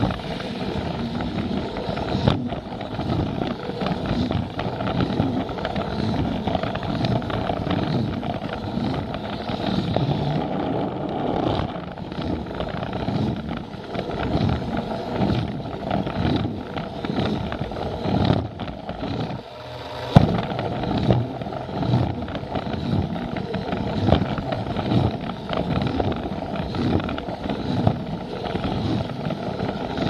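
Plarail battery toy train running on plastic track, heard up close from a camera riding on it: a steady rattling whir from its motor and gears, with frequent clicks from the wheels over the rail joints. A brief lull about two-thirds through ends in a sharp knock.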